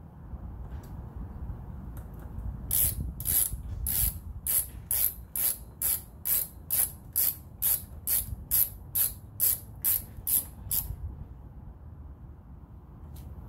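Hand ratchet tool worked back and forth on a fastener at a motorcycle's GPS mount: a run of about twenty quick ratcheting clicks, two or three a second, starting a few seconds in and stopping near the end.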